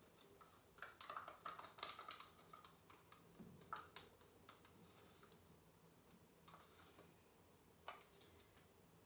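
Near silence with faint, scattered light clicks and taps from small hand-held painting tools being handled, thickest about a second in.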